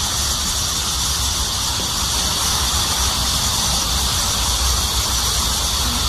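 Steady high-pitched chorus of cicadas, with a low rumble of wind on the microphone.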